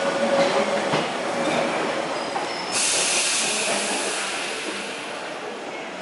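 A passenger train running on rails. About three seconds in, a sudden loud hiss starts and then slowly fades.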